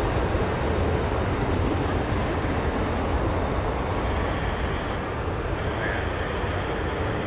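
Boeing 747-400's four jet engines running as the jumbo rolls away along the runway: a steady rush of jet noise with a deep rumble underneath, slowly fading. A faint thin high whine joins from about four seconds in.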